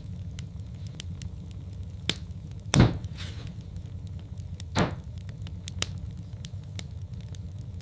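Wood fire in a fireplace crackling: many small sharp crackles over a steady low rumble, with two louder pops, one about three seconds in and one near five seconds.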